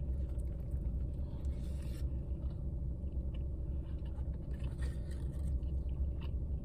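A person chewing a mouthful of breakfast sandwich, heard as faint, scattered soft clicks, over a steady low rumble inside a car, which is the loudest sound.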